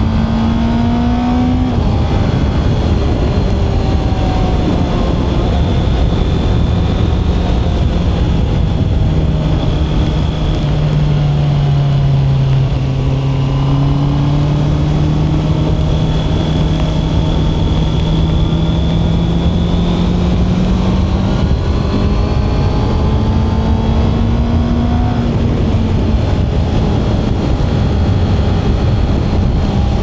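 Honda CB650R's inline-four engine running at a steady cruise, its pitch easing down a little around the middle and climbing back up later, over a constant rush of wind and road noise on the wet road.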